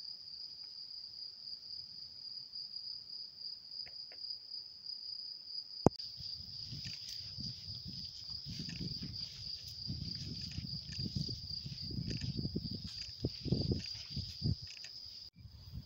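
Insects chirring in grass: a steady high-pitched buzz that never breaks. About six seconds in there is a sharp click, followed by a gusty low rumble and rustle.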